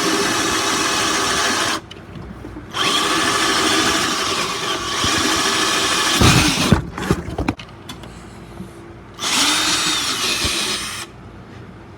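Ryobi cordless drill boring a hole through hard wood in three steady runs with short pauses between, and a few loud knocks about six to seven seconds in as the bit bites and breaks through.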